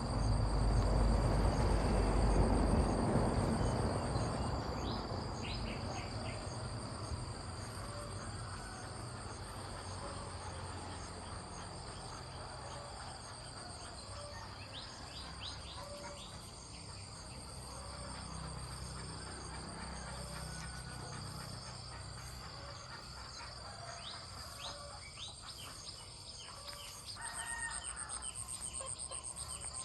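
Insects trilling steadily in high, continuous tones, with scattered short chirps and a louder pulsing trill near the end. A low rumble is loudest in the first few seconds, then fades.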